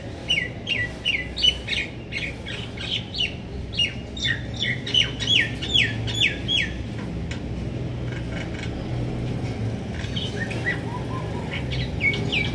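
Small birds chirping: quick runs of short, falling chirps, thick for the first seven seconds, then sparse, picking up again near the end. A low steady hum runs underneath.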